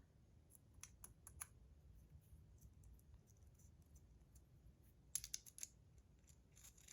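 Faint light clicks and taps of small metal fidget spinner parts being handled and set down on a scale, in a cluster in the first second and a half, another about five seconds in, and a few more at the end.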